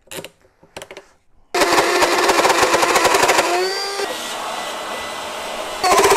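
A few light clicks, then an electric trim router on a circle-cutting jig switches on about a second and a half in and runs with a high whine, cutting a circle in a wood panel. A couple of seconds later its pitch slides down and the sound eases, then it comes back loud near the end.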